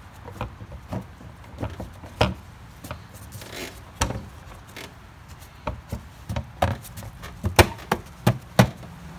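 Irregular knocks and clacks of hard objects being handled, with a short rustle partway through and the sharpest clacks near the end.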